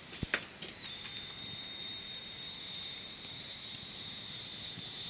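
A steady, high-pitched insect buzz that starts about a second in and holds one even pitch, after a couple of short clicks near the start.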